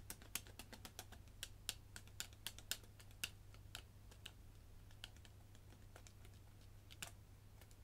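A run of faint, quick, irregular light clicks and taps, dense at first and thinning out after about four seconds: kitchen sound effects of spices being measured into the dry ingredients.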